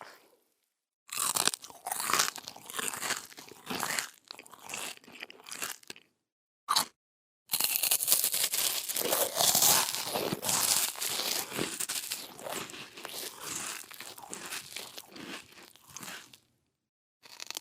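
Crunchy biting and chewing sound effects, played as separate clips with short silences between them: a run of crisp crunches from about a second in, a single short bite near the middle, then a long stretch of crunchy chewing, and a new bite starting right at the end.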